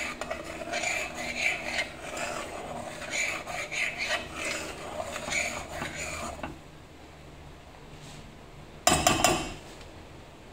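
A spoon scraping round the inside of a stainless steel saucepan, stirring a creamy coffee mixture in repeated strokes, then going quiet; a brief loud clatter comes about nine seconds in.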